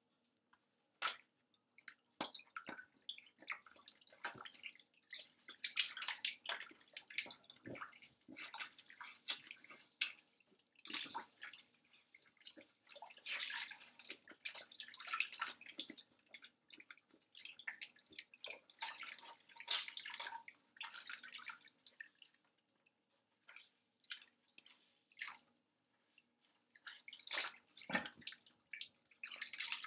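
Water splashing and sloshing in a stainless steel sink as goalkeeper gloves are rubbed and squeezed by hand, in irregular bursts with scattered drips.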